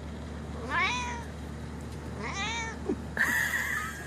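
Domestic cat meowing twice, each meow rising and then falling in pitch, followed near the end by a shorter flat-pitched, slightly hissy sound.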